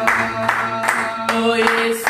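A small group singing a worship song, clapping their hands in steady time at about two and a half claps a second.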